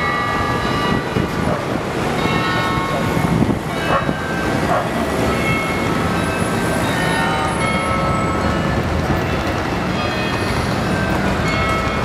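Busy city-square street ambience: crowd chatter and traffic, with high ringing tones that come and go.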